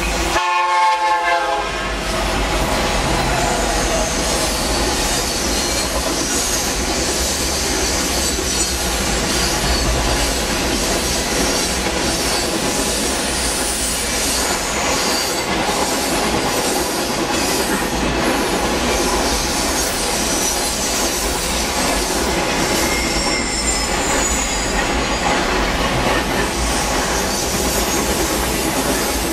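Freight train passing a grade crossing close by, heard from inside a car: a horn sounds briefly at the start, then a steady rumble and clatter of wheels over the rails, with wheels squealing at times.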